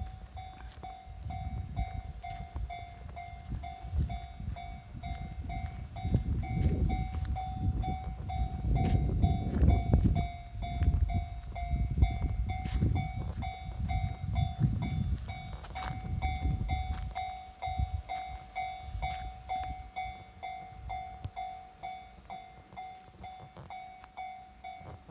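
Japanese level-crossing warning bell ringing in a steady, even pulse, while a train passes over the crossing. The train's low rumble and wheel clatter swell to their loudest from about six to sixteen seconds in and then fade away, leaving the bell ringing on.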